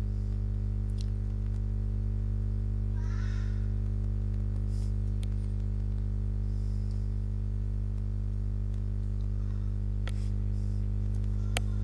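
Steady low electrical-sounding hum with several even tones, holding level throughout, with a few faint sharp clicks near the end.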